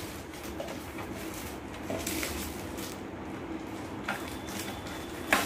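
Thin clear plastic packaging bag rustling and crinkling as it is handled and unwrapped, with a few soft crackles over a faint steady hum.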